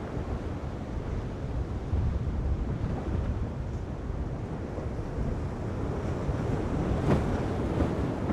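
Wind buffeting the microphone over the wash of heavy surf, with one louder surge of breaking water about seven seconds in.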